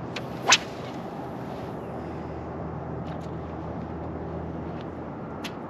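Boat motor running steadily, with one sharp click about half a second in.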